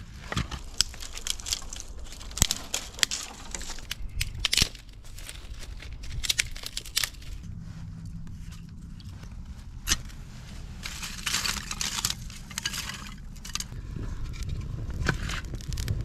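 Dry tinder and twigs crackling and snapping with rustling: many irregular sharp snaps while a campfire is being started.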